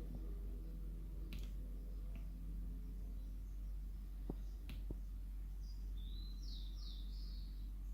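A few sharp clicks of an MSI GS65 Stealth laptop's power button being pressed, spaced unevenly, over a steady low hum, with no startup sound following: the laptop won't turn on. A few high chirps come near the end.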